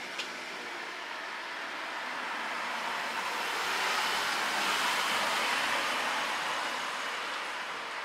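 A vehicle passing on the street: a rushing noise that swells to its loudest about halfway through and then fades away.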